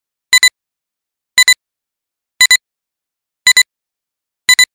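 iMovie film-leader countdown sound effect: a short, sharp double beep once a second, five times, each a clean high-pitched tone with silence between.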